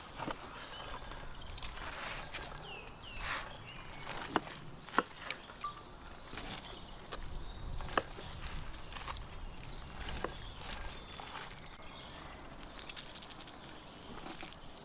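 Steady high-pitched insect chirring that cuts off suddenly about twelve seconds in, with a few sharp light clicks and knocks scattered through.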